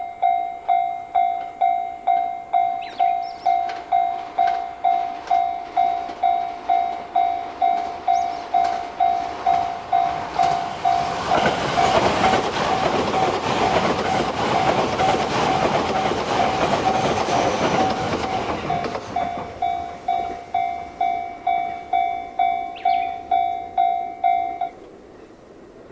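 Japanese level-crossing warning bell ringing in a steady, even beat while a train passes over the crossing for about eight seconds, with wheel noise and clicking over the rails. The bell stops near the end.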